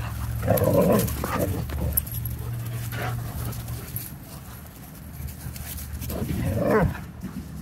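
Several puppies playing rough together, with dog vocal sounds in short bursts: one about half a second in and a louder one near the end.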